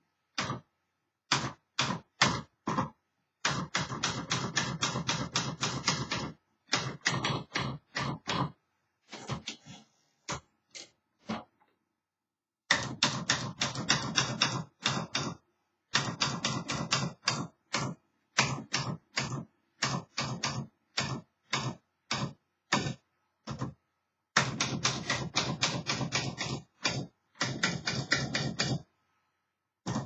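1960s Smith Corona Skyriter manual portable typewriter being typed on: rapid runs of sharp key-and-typebar clacks in bursts of a second or more, with short pauses between them. The machine is working as it should.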